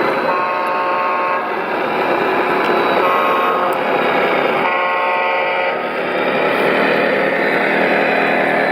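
RC truck's engine running steadily, with a horn sounded three times, each blast about a second long.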